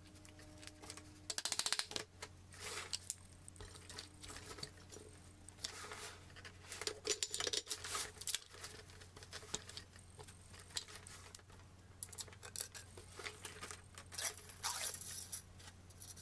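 Metal parts of a Mossberg 590 pump-action shotgun clicking, scraping and knocking as they are handled and fitted together during reassembly, with a quick rattling run of clicks about two seconds in.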